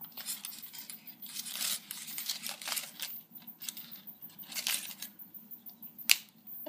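Hollow chocolate shell of a Kinder Surprise egg cracking and being pulled apart by hand, with a run of short crackly scrapes and clicks as the plastic toy capsule is handled. There is one sharp click near the end.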